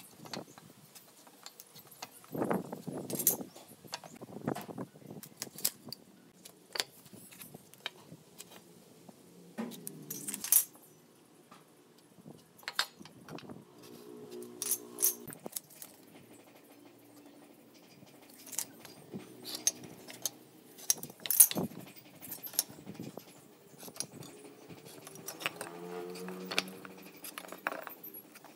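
Scattered clicks, taps and knocks as a steel carpenter's square and pine boards are handled and set down on a concrete floor while the wood is marked out.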